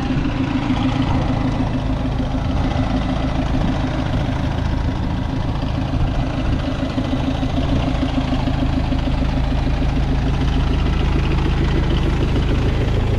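City buses idling at a stop: a steady low engine hum with a droning tone, over street noise.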